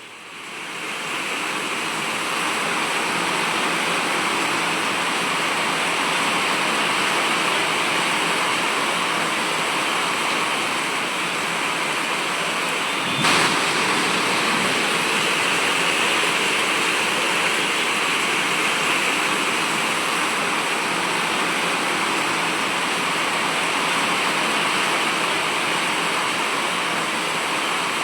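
Heavy rain pouring down with wind, a steady rushing hiss that swells up in the first couple of seconds, with one brief sharp crack about halfway through.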